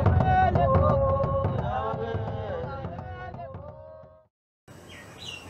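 Intro music, a melody over light hand percussion, fading out over about four seconds. A short silence follows, then faint room noise.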